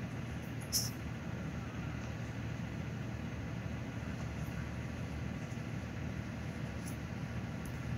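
Car engine idling steadily with a low hum, with one short sharp click about a second in.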